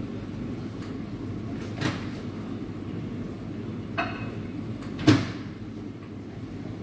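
Three short knocks and clinks from baristas handling cups and equipment behind a coffee bar, over a steady low hum. The middle one rings briefly, and the last, about five seconds in, is the loudest.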